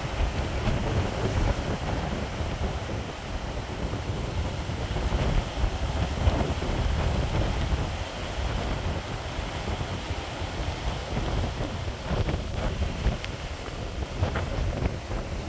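Storm waves breaking and foaming water surging over rocks, with a steady low rumble of wind buffeting the microphone.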